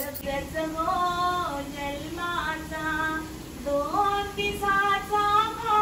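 A high female voice singing a slow melody with long held notes that slide from one pitch to the next.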